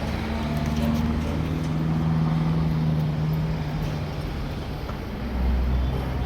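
An engine running at low speed, a steady low drone whose pitch shifts slightly, with a deeper rumble that swells about five seconds in.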